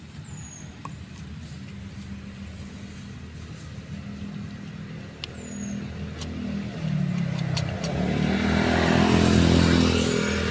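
A motor vehicle's engine, faint at first, growing steadily louder over several seconds and loudest near the end as it draws close. A few short, high chirps sound above it.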